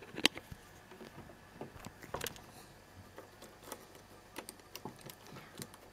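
Faint, scattered small clicks of a screwdriver working the centre screw of a Bernina 910 sewing machine's plastic hand wheel, and of fingers turning the loosened screw.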